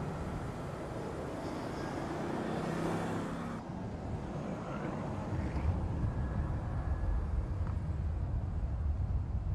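Mercedes-AMG GT's twin-turbo V8 running as the car drives along, its engine note clear in the first few seconds. After a sudden cut about three and a half seconds in, a steady low rumble of engine and road noise.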